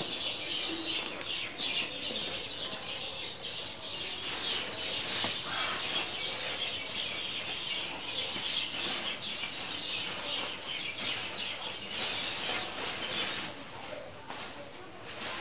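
Plastic shopping bags rustling and crinkling as they are rummaged through and handled, in a steady run of crackles.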